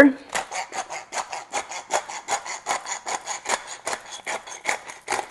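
Hand-twisted salt and pepper grinder grinding over food: a dry, rasping crunch made of quick clicks, about six a second.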